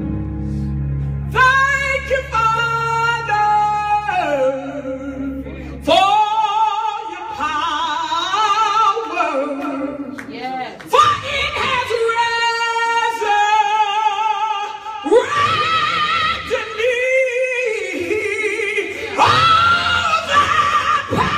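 A woman singing solo into a handheld microphone, holding long notes with a wide vibrato. A low held accompaniment sounds under her voice for the first six seconds, then drops out.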